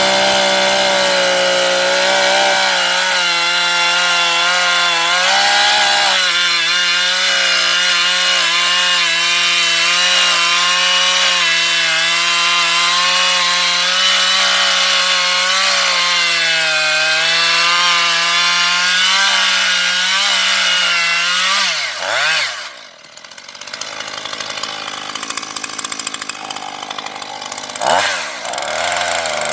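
Husqvarna 135 Mark II two-stroke chainsaw running at full throttle through a long cut in wood, its pitch wavering under load. About 22 seconds in it drops to idle, revs up briefly near the end, then returns to full throttle.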